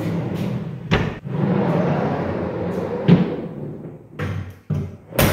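Large plywood truck-bed drawer rolling in and out on bearing tracks: a steady rolling rumble, a knock about a second in and another just after three seconds, then a few thumps near the end as the drawer is pushed shut.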